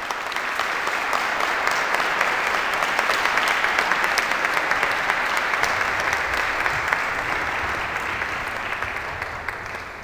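Audience applauding, swelling up at the start, holding steady, and tapering off near the end.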